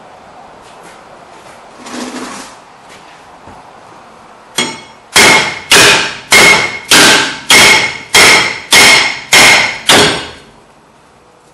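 A hammer striking a rusted-on cast-iron rear brake rotor from behind: a light tap, then nine hard, ringing metallic blows a little under two a second. The blows are breaking the rust that holds the rotor to the hub.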